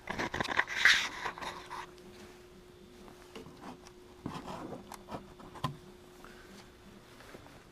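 Hand-work noise: a busy burst of scraping and clattering, then scattered knocks and rubs, over a faint steady hum.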